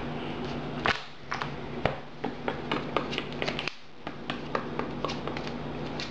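Trading cards being handled and set down on a table: a quick, irregular run of light clicks and taps, thickest in the middle.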